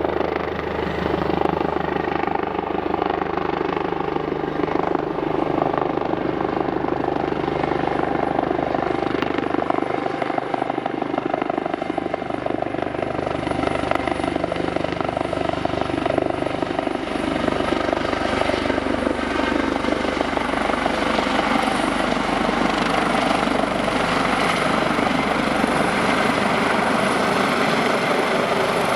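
Eurocopter AS365 Dauphin twin-turbine rescue helicopter running steadily, its rotor noise mixed with a high turbine whine.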